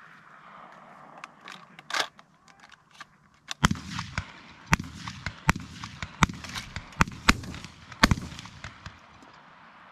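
Over-and-under shotgun shooting clays: a string of sharp gunshots from about three and a half seconds in, the loudest near eight seconds.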